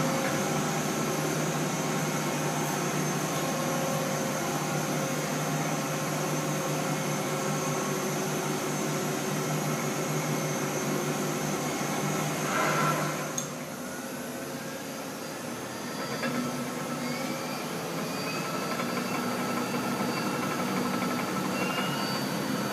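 Mori Seiki SL-65 CNC lathe running under power: a steady machine hum with several steady tones. About halfway through it swells briefly, then goes quieter for a few seconds before a faint whine rises in pitch as it picks back up.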